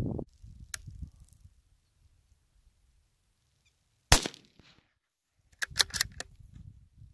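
A single shot from a .17 HMR bolt-action rimfire rifle, a sharp crack with a short ringing tail about four seconds in. About a second and a half later comes a quick run of several sharp clicks with low handling noise.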